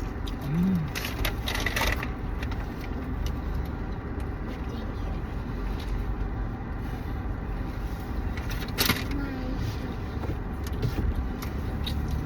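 Steady low rumble inside a car's cabin, with a short hummed sound just under a second in and a few brief crackles about a second in and again near the end.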